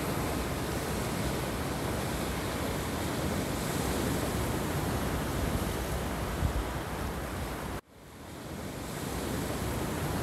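Sea surf breaking over rocks and washing across a pebble beach, a steady rush of water. About eight seconds in, the sound cuts out abruptly and then fades back up.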